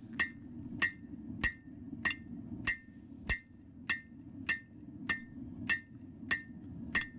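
Blacksmith's hammer striking steel on an anvil in a steady rhythm, about a dozen blows at a little under two a second, each with a short metallic ring. A steady low rush from the propane forge burner runs underneath.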